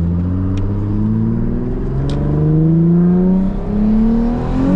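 Twin-turbo 2006 Nissan 350Z's 3.5-litre V6 accelerating hard, its pitch climbing steadily, then dropping on an upshift about three and a half seconds in before climbing again.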